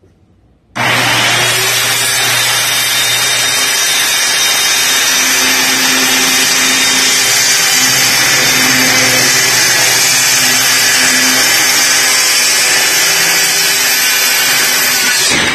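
Corded DeWalt circular saw starting up about a second in and running loud and steady while it rips a long straight cut through thin luan plywood underlayment, cutting off right at the end.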